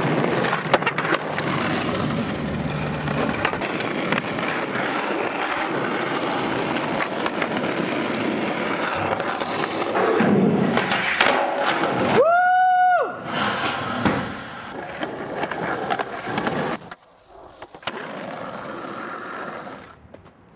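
Skateboard wheels rolling on rough asphalt, a steady gritty rumble broken by sharp clacks of the board. About twelve seconds in a short high tone rises and falls in under a second. Near the end the rolling drops away suddenly and goes quieter.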